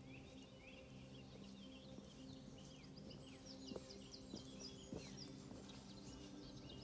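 Great spotted woodpecker chicks calling from the nest, a dense, continuous chatter of short high chirps. A few faint clicks sound about halfway through.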